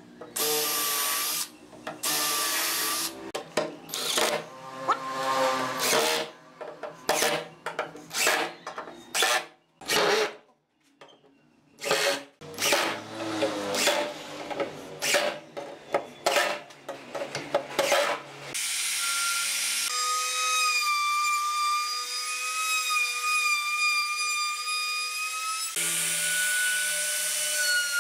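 Cordless power tools working pine boards: a drill and an impact driver run in many short bursts as pilot holes are bored and screws driven. From about two-thirds of the way through, a trim router runs steadily with a continuous whine.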